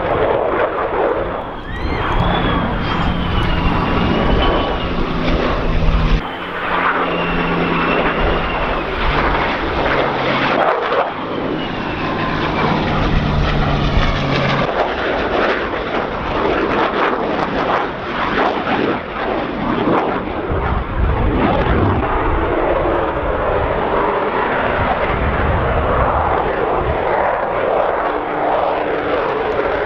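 Military jet flybys: the steady roar of an F-35's turbofan engine, with a high whine that wavers in pitch. For roughly the first half, the steady low tones of a P-51 Mustang's piston engine run underneath as it flies in formation with the jet, then stop abruptly.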